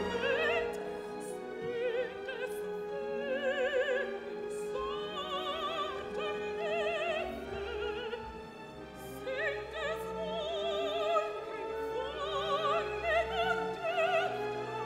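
Classical music: an operatic voice singing long notes with wide vibrato over orchestral accompaniment.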